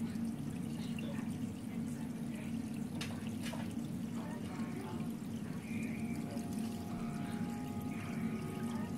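Aquarium water trickling and splashing steadily, with a couple of brief clicks about three seconds in.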